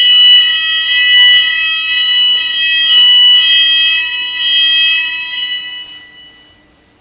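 Fire alarm sounders of a Cooper addressable fire alarm system, set off during a smoke detector test, sound a loud, steady, high-pitched multi-tone alarm with a few short clicks over it. The alarm dies away over the last two seconds as it is silenced.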